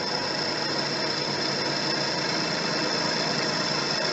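Electric drill running steadily with a high whine as a Black Widow twist bit drills a flange.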